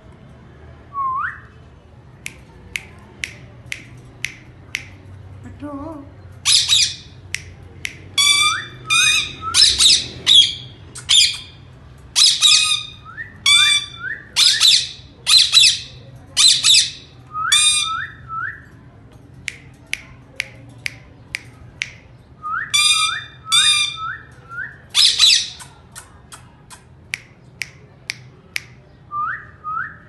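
Indian ringneck parakeets calling: runs of loud, harsh squawks mixed with short rising chirps in quick groups of three to five. Sharp little clicks scatter through the quieter stretches between the runs.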